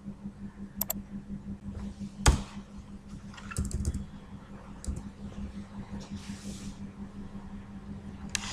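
Computer keyboard keys pressed in scattered, irregular clicks while text is deleted in a code editor, with the loudest keystroke about two seconds in. A steady low hum runs underneath.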